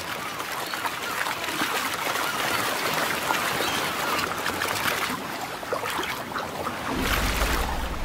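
Shallow water splashing and churning as dolphins strand-feed, rushing onto a mud bank to push fish out of the water. A low rumble comes in near the end.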